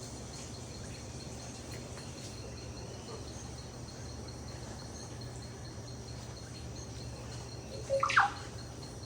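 Tropical rainforest ambience: an insect's high, evenly pulsing trill over a steady low hum, with a single loud, steeply falling bird call about eight seconds in.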